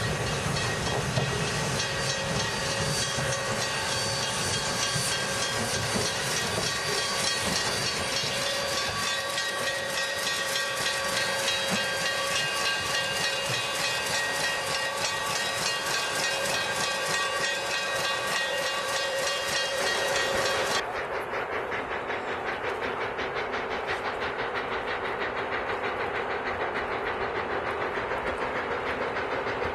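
Ex-Canadian National 0-6-0 steam locomotive venting steam close by: a loud, steady hiss with a few steady tones in it. About two-thirds of the way through it cuts off sharply to a duller, quieter steady noise.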